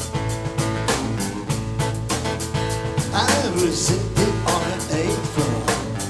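Live acoustic band playing: strummed acoustic guitar, acoustic bass guitar and a drum kit keeping a steady beat. A singing voice comes in about three seconds in.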